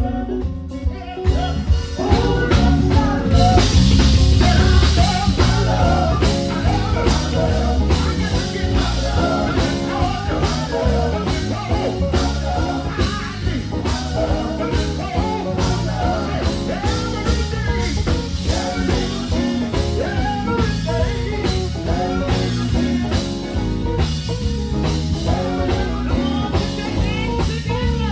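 Live gospel band music: electric guitar, bass guitar and drums playing a steady beat, with male vocalists singing into microphones over it. The band grows louder about two seconds in.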